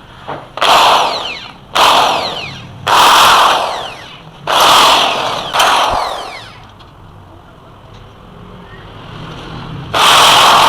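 Metal scraping as a mortise lock is worked through the steel lock housing of a grill door, in five rough bursts of about a second each, then one more near the end.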